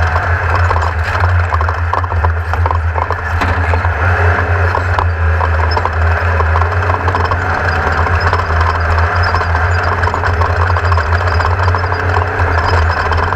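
Class 1600 off-road race car's air-cooled Volkswagen flat-four engine running steadily, with a constant stream of rattles and knocks over the top.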